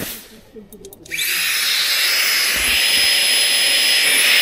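A small electric air pump, of the kind used to blow up a camping sleeping mat, switched on about a second in. It spins up quickly and then runs steadily with a loud rushing whir and a high whine.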